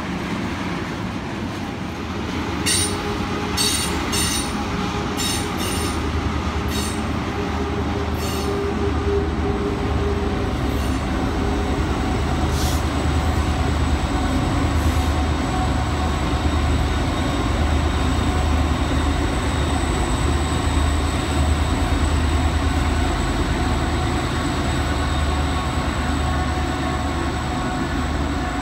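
Freight trains rolling past on a curve. The railcars give a steady rumble, with a string of sharp metallic clicks in the first several seconds. From about five seconds in, the deep throb of Norfolk Southern diesel locomotives grows louder. A thin, high wheel squeal runs through the second half.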